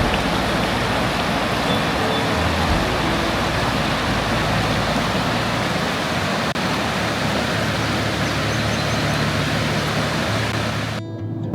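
A car being driven: steady rushing road noise with a low engine hum, cutting off abruptly near the end.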